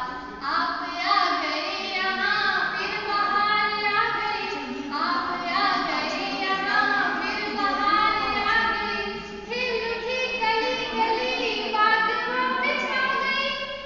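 A young woman singing a welcome song (swagat geet) solo and unaccompanied, in long held, gliding notes.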